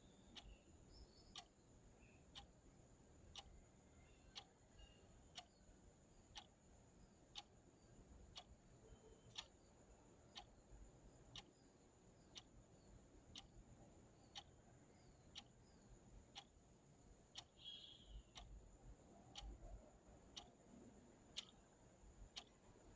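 Clock ticking steadily and faintly, about one tick a second.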